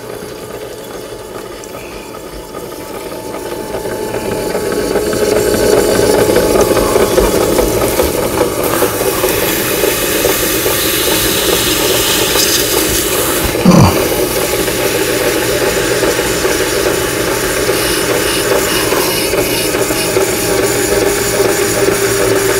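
Electric potter's wheel motor running up to speed over the first few seconds, then running steadily with a constant whine, while hands press and smooth a pad of wet clay on the spinning wheel head. There is one brief falling sound about two-thirds of the way through.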